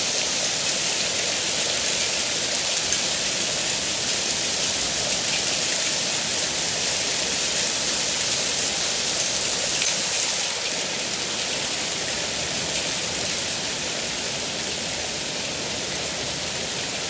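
Heavy rain mixed with hail pelting a garden lawn, paving and a wooden pergola deck: a dense, steady hiss with fine ticks of hailstones through it, easing slightly about ten seconds in.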